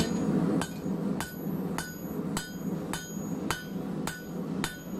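Blacksmith's hand hammer striking a hot square steel bar on an anvil: about eight even blows, a little under two a second, each with a short metallic ring, flattening the end of the bar.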